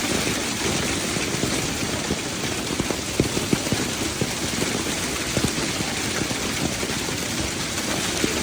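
Heavy rain falling, with many drops tapping irregularly on a surface close to the microphone.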